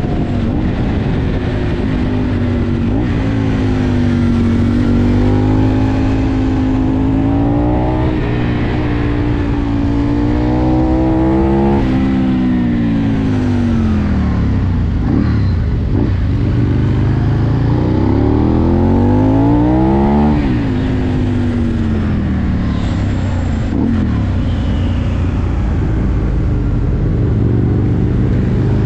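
Aprilia Tuono V2's V-twin engine heard from on board, pulling up through the gears with brief breaks at each shift, then winding down on engine braking into a bend and pulling hard again before dropping off sharply. Wind rushes over the microphone throughout.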